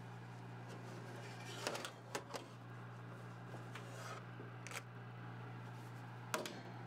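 Metal baking sheet sliding out over a wire oven rack, with a few short scrapes and clicks about two seconds in, near five seconds and near the end, over a steady low hum.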